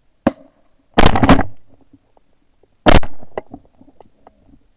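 Shotgun blasts from several duck hunters firing at passing teal: one sharp shot just after the start, a quick run of overlapping shots about a second in, and another loud shot about three seconds in.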